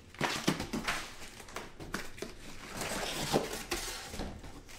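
Cardboard packing being lifted and slid out of a shipping box, rustling and scraping, with plastic wrap crinkling and several light knocks.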